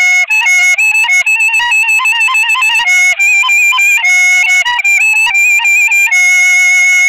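Kaval, the end-blown shepherd's flute, playing a quick, ornamented folk melody in a single line, settling into a long held note about six seconds in.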